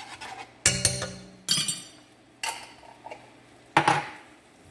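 A spoon knocks and clinks against a pan and a glass jar as minced garlic is scooped out and tapped off into the pan. There are four sharp knocks roughly a second apart, and the first rings briefly.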